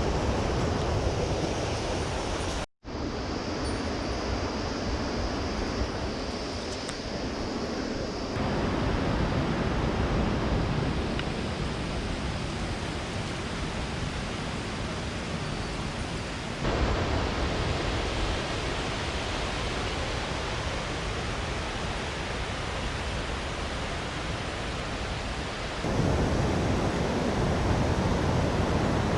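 Mountain stream water rushing steadily, heard across several short clips. It drops out for an instant about three seconds in and jumps in level and tone at each cut.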